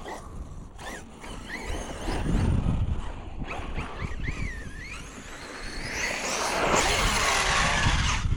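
Arrma Fireteam RC car's brushless motor whining, its pitch rising and falling with the throttle as the car drives. Over the last two or three seconds a louder rushing noise builds as it speeds up.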